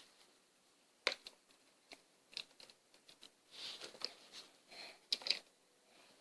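Faint scattered clicks and rustles of small toys being handled and set down, with a sharper click about a second in and two more a little after five seconds.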